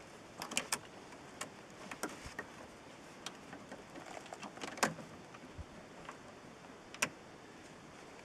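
Scattered light clicks and small handling noises of plastic zip ties being bent and pushed around the ball studs of Ziptie Plugs, over a faint steady background. The sharpest clicks come about five and seven seconds in.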